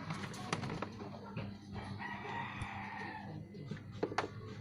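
A rooster crowing once, one long held call about two seconds in, over a steady low hum and scattered sharp clicks and taps.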